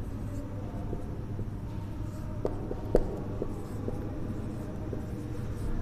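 Marker pen writing on a whiteboard: light scratching and scattered taps of the tip, the clearest about three seconds in, over a steady low hum.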